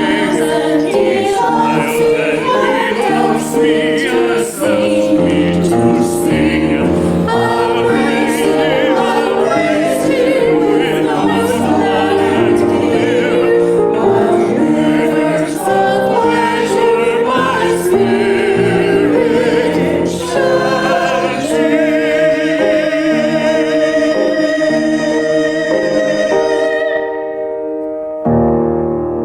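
Choir singing a sacred piece with accompaniment, with changing sustained chords that settle into one long held final chord and fade out; a new keyboard chord comes in near the end. It is offertory music, played just before the prayer over the offering.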